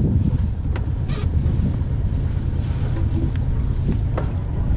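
Sailboat's engine running steadily in reverse gear, a low rumble, with wind on the microphone and a few light clicks.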